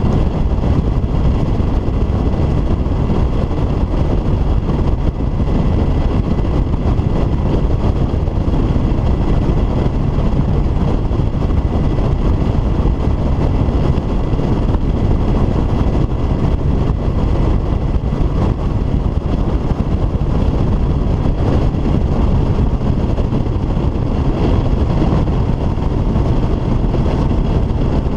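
Bass boat running fast across choppy open water: a loud, steady rush of wind on the microphone mixed with the outboard motor's drone and water against the hull.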